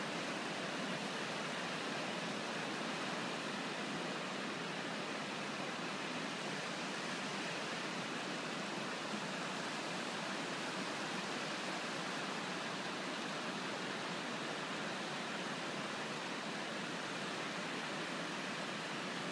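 Steady, even rushing of water, holding one level throughout with no rise or fall.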